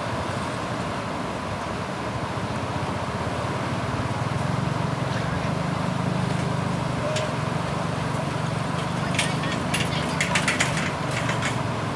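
A motor vehicle's engine running close by, its low hum building about four seconds in and easing off near the end, over a steady rushing background. A quick run of clicks and rattles comes near the end.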